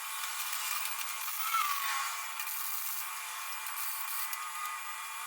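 A power tool running steadily with a rubbing, grinding noise.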